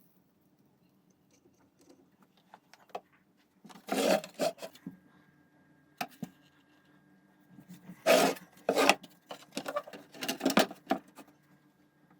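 Several short bursts of clattering and knocking, as of hard plastic and metal parts being handled, over a faint steady hum.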